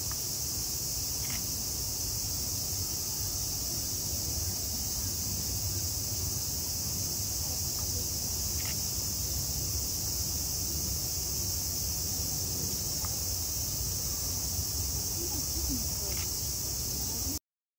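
Steady, dense high-pitched buzzing chorus of summer cicadas, with a low steady rumble beneath and a few faint short chirps; it cuts off suddenly near the end.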